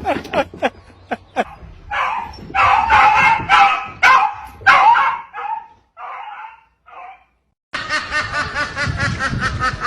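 A dog barking and yipping in a run of short, pitched calls, loudest in the middle. After a brief gap near the end, a different fast, evenly pulsing sound begins.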